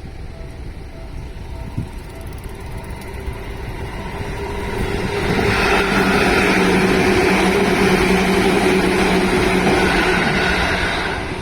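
Seibu 2000 series electric train passing through at speed: the rumble grows from about four seconds in, stays loud with a steady whine for about five seconds, and starts to fade near the end.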